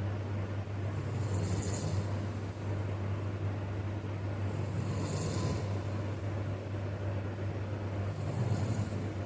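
A man snoring: three snoring breaths, about three and a half seconds apart, each with an airy hiss, over a steady low hum.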